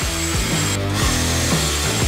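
Background music with a steady beat, over the steady whir of a handheld power tool being worked on a truck frame. The tool noise cuts out for a moment about a second in.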